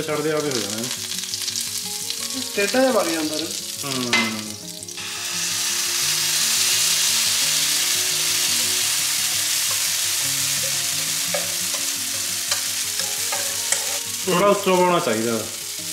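Pancake batter sizzling in a hot greased pan, a steady hiss from about five seconds in, with a whisk scraping and stirring as it is spread. A voice is heard briefly in the first few seconds.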